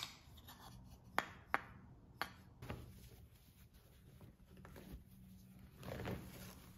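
Beech wooden spoons clacking against each other, three short sharp knocks in the first couple of seconds, then cloth placemats rustling as they are handled, loudest about six seconds in.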